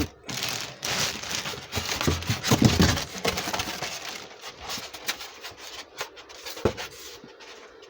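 Packaging being handled during an unboxing: rustling and crinkling with scattered clicks, busiest in the first three seconds and then quieter, and one sharp knock about six and a half seconds in.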